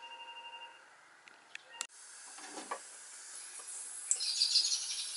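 Compressed air hissing through a Stuart Turner model beam engine as the air supply is turned on, getting steadily louder toward the end.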